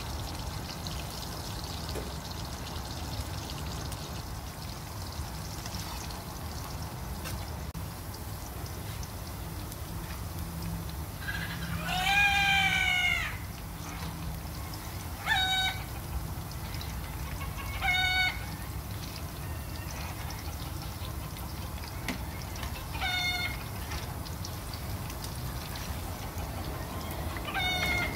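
A cat meowing: one long, drawn-out meow about twelve seconds in, then four short meows a few seconds apart.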